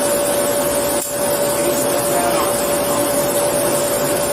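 Steady mechanical hum and hiss with a constant mid-pitched tone running under it.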